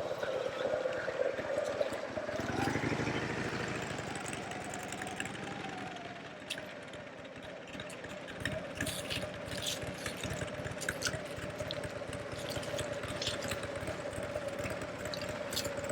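Motorcycle engine running at a steady speed, its pitch rising and then dropping back in the first few seconds.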